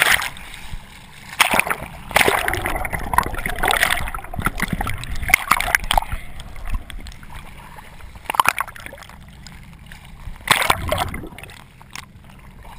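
Water splashing and sloshing around a wrist-mounted camera as it moves through bubbles and breaks the sea surface, in irregular bursts of splashing that grow quieter near the end.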